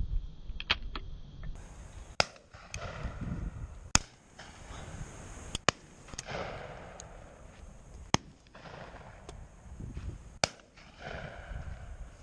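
Shotgun shots from other guns along the line, sharp sudden cracks at irregular intervals, about half a dozen clear ones plus a few fainter, some followed by a rolling echo.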